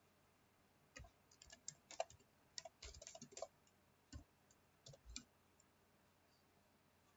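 Typing on a computer keyboard: a quick run of faint keystroke clicks starting about a second in and stopping about five seconds in.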